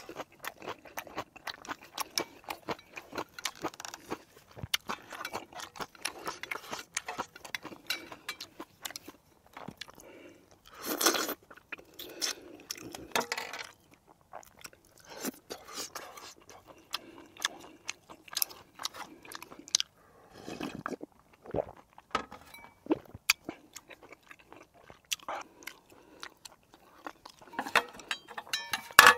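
A man eating close to the microphone: chewing and crunching food, with many short, irregular mouth clicks and smacks. A louder, longer noise comes about eleven seconds in.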